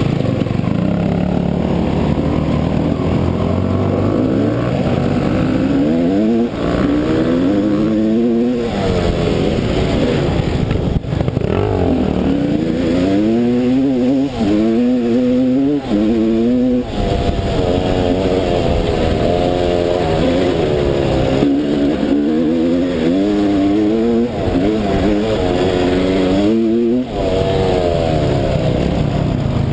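Dirt bike engine under way on rough ground, revving up in repeated rising runs that drop back at each gear change or throttle-off, with a few brief dips where the throttle is closed.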